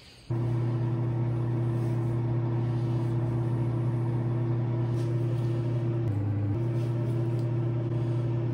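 A steady low machine hum that starts suddenly and runs evenly. About six seconds in, its pitch dips lower for half a second, then comes back.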